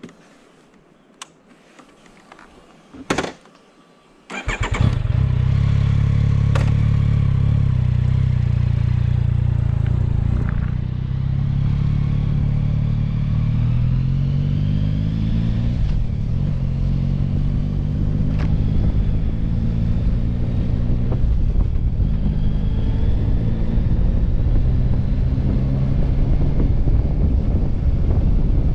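Yamaha Tracer 9 GT's three-cylinder engine starting about four seconds in, after a few sharp clicks, then running as the motorcycle pulls away and rides on, its pitch rising and falling with the throttle and gear changes.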